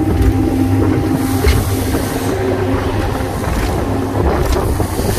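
The 115 hp Yamaha outboard on a Carolina Skiff running at speed, a steady engine note under the rush of wind on the microphone and water along the hull. The hull knocks sharply against the chop a few times.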